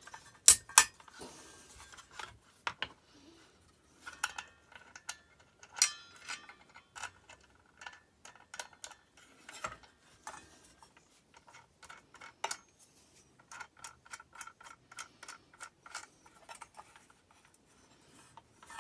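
Metal parts of a circular saw being handled by hand: clicks, clinks and knocks of the blade, washer and arbor bolt, with two loud knocks under a second in and a run of even ticks, about three a second, in the second half.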